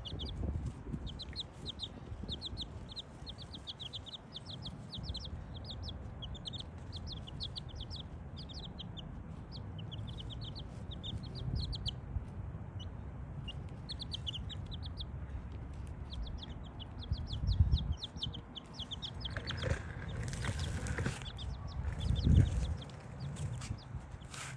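Miniature chicken chicks peeping continuously, a rapid stream of short, high, slightly falling peeps. A low rumble runs underneath, with a brief rustle about three-quarters of the way in and two loud low thumps, the later one near the end.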